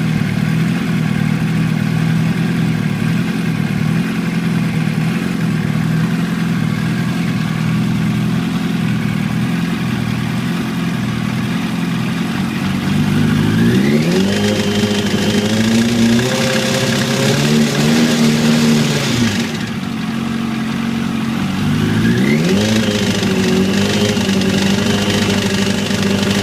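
2004 Yamaha R1's inline four-cylinder engine idling, then revved up and held twice for a few seconds each time, with a tick noise that appeared after a track day.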